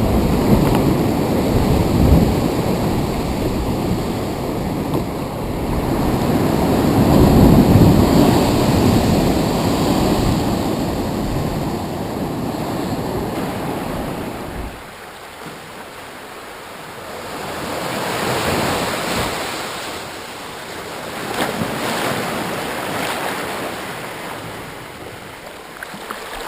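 Wind buffeting the microphone over ocean surf. About fifteen seconds in the wind noise drops away suddenly, leaving waves washing in and out in slow swells.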